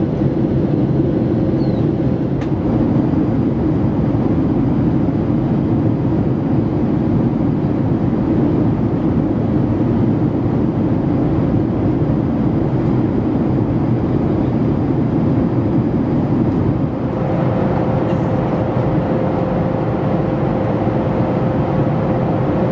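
Cabin noise of a Boeing 737-500 in flight: the steady roar of its CFM56 turbofan engines and the airflow over the fuselage, with a constant hum and a faint high whine. About three-quarters of the way through the noise dips briefly and the hum becomes more prominent.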